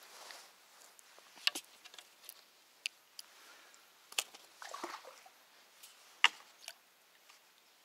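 Faint, scattered sharp clicks and short rustles, the loudest click about six seconds in, with a brief rustle just before five seconds.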